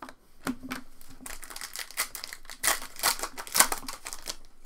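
Foil wrapper of a trading-card pack crinkling and crackling as it is handled, a busy run of sharp crackles and rustles.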